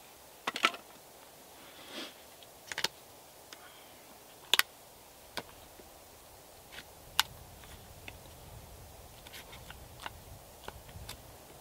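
Knife blade chopping and levering chips out of a split birch log between saw cuts, carving out the waste for a Swedish torch's air hole. It makes irregular sharp wooden cracks and taps, about a dozen spread out, with the loudest about half a second in and again near the middle.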